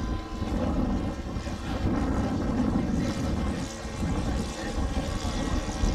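Engine of a radio-controlled scale Piper Cub (L-4) model airplane, droning steadily as it flies overhead.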